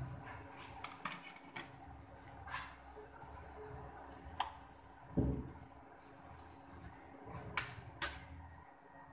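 Metal spoon scraping and tapping against a non-stick wok while stirring sliced onions and garlic: a string of separate clicks and scrapes, with a duller thump about five seconds in.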